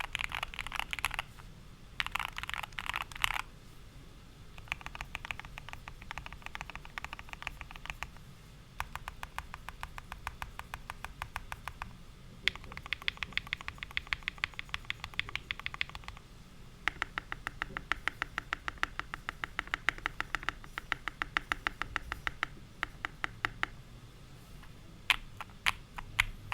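Typing on a Keychron Q1 mechanical keyboard fitted with lubed, filmed Alpaca V2 linear switches. Rapid runs of keystrokes come in several bursts with short pauses between them, and a few single strokes near the end.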